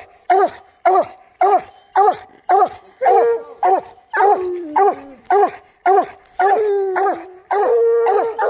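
Coonhounds barking steadily at a tree, about two loud chop barks a second, mixed with a few longer drawn-out bawls; calls overlap at different pitches, so more than one hound is barking. The fast barking at a tree lit by the hunters' flashlight is the sign that the hounds have treed a raccoon.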